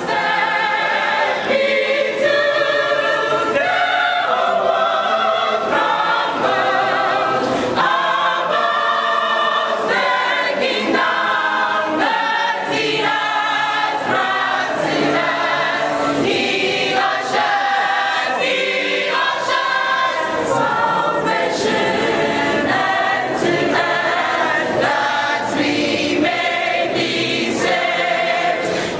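A choir of women's and men's voices singing a gospel song together.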